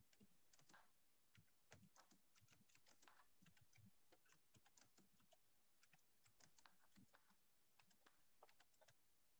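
Faint typing on a computer keyboard: quick, irregular key clicks.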